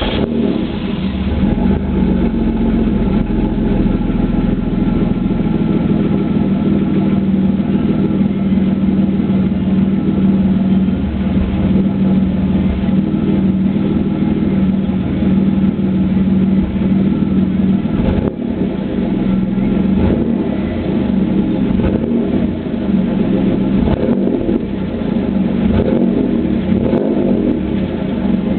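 Chevrolet Camaro 3.8-litre V6 catching at the start and then idling steadily, its exhaust breaking up irregularly now and then: a misfiring cylinder from a bad spark plug.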